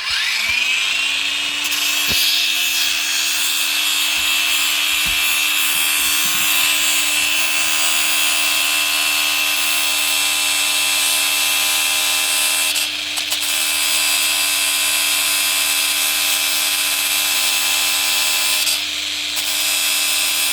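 Angle grinder spinning up within about a second, then running steadily with a high whine while its disc grinds against a piece of old iron. The grinding noise eases briefly twice, about two-thirds of the way through and near the end.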